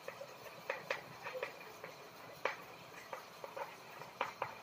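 Chalk tapping and scraping on a blackboard as text is written: a string of short, irregular clicks.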